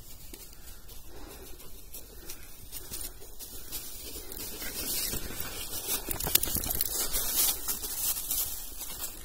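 Dry fallen leaves rustling and crunching underfoot, with many small crackles, louder from about halfway through as steps move through them.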